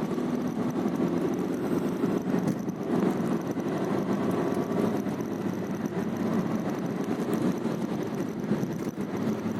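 Steady engine and road rumble of a car driving at low speed, heard from inside the cabin.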